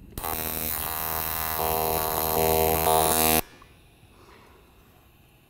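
AC TIG welding arc on aluminum, the welder set to pulse, buzzing with a steady hum and hiss. It strikes just after the start and cuts off suddenly about three and a half seconds in.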